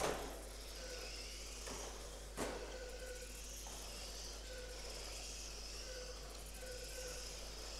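Small electric radio-controlled cars whining as they lap the track, the high motor whine swelling and fading as each car passes. Two sharp knocks cut through, one at the very start and one about two and a half seconds in.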